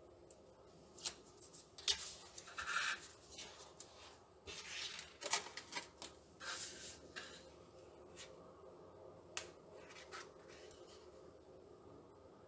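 Paper and card being handled: short scattered rustles with a few light taps, dying away about eleven seconds in.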